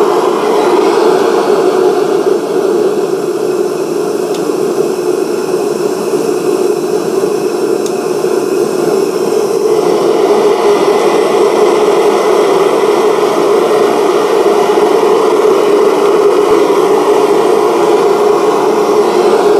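Melting kiln firing with a steady, even roar while a flux-glazed crucible heats inside it.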